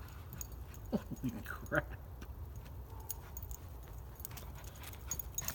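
A Goldendoodle puppy gives a few short, high whines or yelps in quick succession about a second in, over a steady low rumble.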